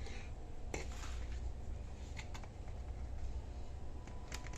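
Quiet kitchen handling sounds, with a few light clicks and faint scrapes as crab boil seasoning is measured out with a quarter-cup measure, over a steady low hum.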